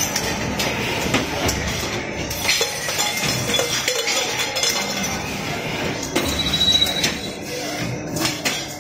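Factory machinery running steadily on a stainless steel bottle production line, with frequent metallic clinks and clanks throughout and a brief high tone about six and a half seconds in.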